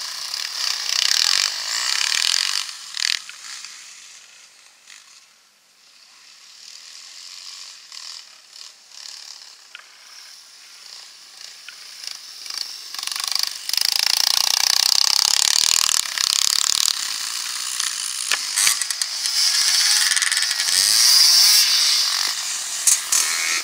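Dirt-bike engines running as the bikes ride past one after another, the sound rising and falling with the passes. It is loud at the start, drops away a few seconds in, and builds again from about halfway.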